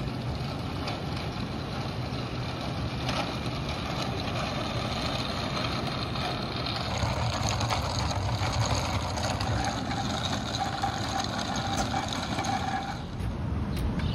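Small casters of a wheeled desk rolling over rough asphalt: a steady rumble, with a thin whine joining about halfway through and stopping suddenly near the end.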